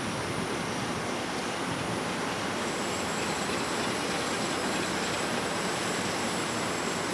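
Dongfeng DF11 diesel-electric locomotive passing with its train: a steady rush of engine and wheels on the rails, with a faint thin high whine coming in about two and a half seconds in.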